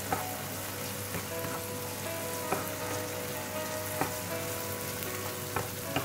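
Oyster mushrooms and egg sizzling in a hot frying pan while a wooden spatula stirs them, with a steady hiss and a sharp tap of the spatula against the pan every second or so.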